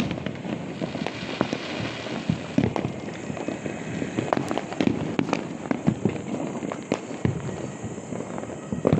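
Firecrackers and fireworks bursting all around, a dense irregular run of pops and bangs of varying loudness.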